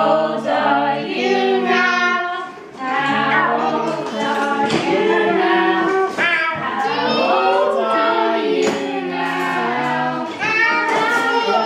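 A family singing a song together, a young girl's voice with adults' voices, in held notes and short phrases.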